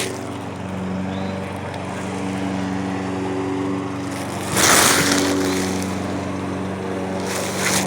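A small engine running steadily, its pitch shifting slightly now and then, with a loud rushing noise about four and a half seconds in that lasts about half a second.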